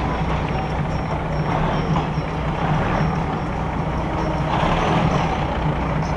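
Diesel railcar running along the track, heard from inside the carriage with the window open: a steady low engine drone under constant wheel and rail noise, swelling a little about two-thirds of the way through.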